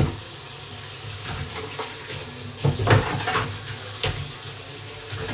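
Tap water running into a stainless-steel kitchen sink while dishes are washed by hand, with dishes knocking against each other and the sink a few times, loudest about three seconds in.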